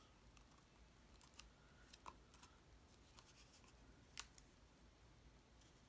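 Near silence with a few faint clicks and light rustles of cardstock pieces being handled and pressed together, the sharpest click about four seconds in.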